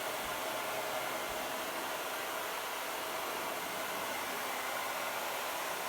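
Hand-held hair dryer blowing steadily on its hot setting, heating a dried-out refrigerator door gasket to soften it.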